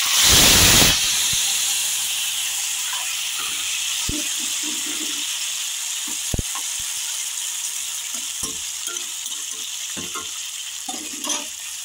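Cooked vegetables tipped into hot coconut oil in a nonstick pan: a loud burst of sizzling as they land, settling into a steady sizzle that slowly fades. A few sharp knocks come through the sizzle.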